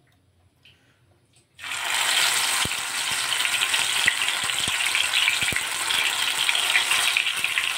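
Mustard-flower fritter batter dropped into hot oil in a pan. A loud sizzle starts suddenly about a second and a half in and carries on as steady deep-frying, with scattered crackling pops.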